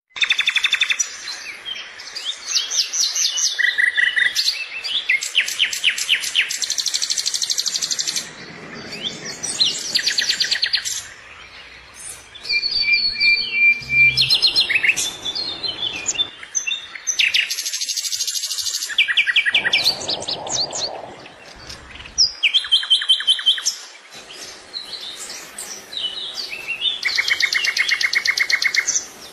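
Small birds chirping: repeated bursts of fast, high-pitched trills and chips, each lasting a second or two, with short pauses between them.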